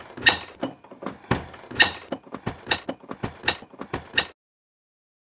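A stiff brass doorknob and latch on a wooden door being jiggled and turned, giving a rapid run of rattling clicks and squeaks that cuts off suddenly about four seconds in. The squeak marks a dry mechanism in need of lubricant.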